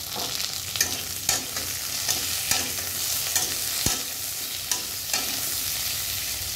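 Potato, green plantain and tomato pieces sizzling in hot oil in a kadai, stirred with a metal spatula that scrapes and clicks against the pan again and again over a steady frying hiss.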